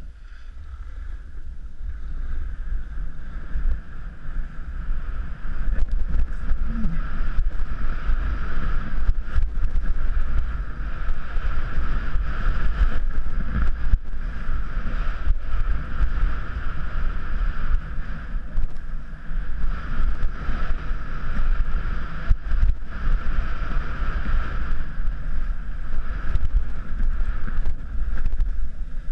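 Wind rushing and buffeting over a camera microphone while skiing downhill, with the hiss of skis sliding on packed snow. It builds over the first several seconds as speed picks up, then stays loud and gusty.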